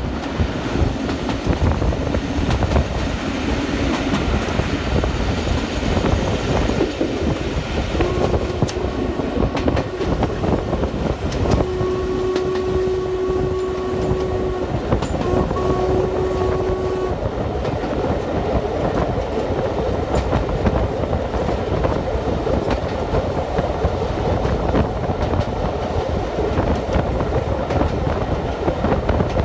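Steam train running, with a steady rumble and wheel clatter heard from an open carriage window. Between about eight and seventeen seconds in, the locomotive's steam whistle sounds three blasts, the middle one the longest.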